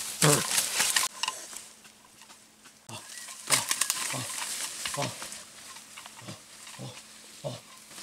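A man grunting briefly and low as he walks, about seven times, mostly about once a second in the second half, while leaves and brush crackle and rustle as he pushes through dense undergrowth.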